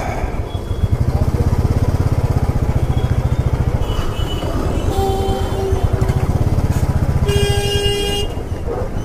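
Motorcycle engine running at low speed with a steady low throb, and vehicle horns honking from the surrounding traffic: one short honk about five seconds in and a longer one about a second later.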